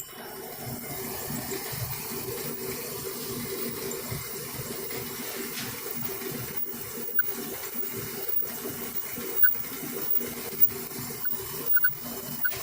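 Clothes dryer running, its drum turning with a steady hum and whoosh that starts at the beginning. A few faint short chirps come from the drum, which the owner puts down to worn drum sliders.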